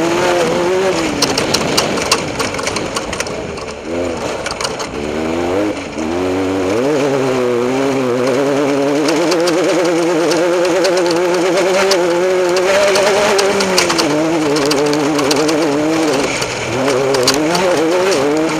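Off-road race vehicle's engine running hard, its pitch rising and falling as the throttle comes on and off, with a jittery waver and scattered clicks and knocks from rough ground. The revs drop off about four to six seconds in, then climb back and hold high, easing briefly near the end.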